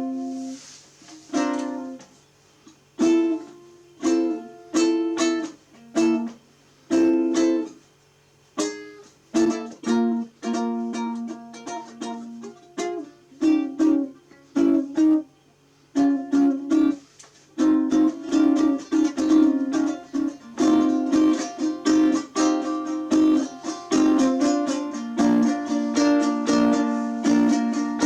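Tenor ukulele being strummed: single chords with pauses at first, then steady rhythmic chord strumming from about halfway on. A faint steady low hum underneath stops partway through.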